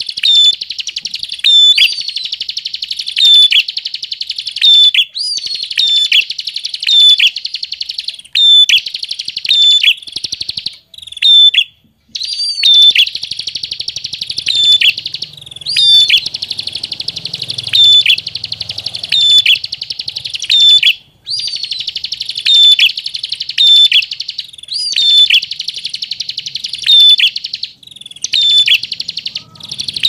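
Prenjak songbird singing: a fast, high, buzzing trill repeated over and over, each phrase set off by a loud hooked note about every one and a half to two seconds, with a few brief pauses between phrases.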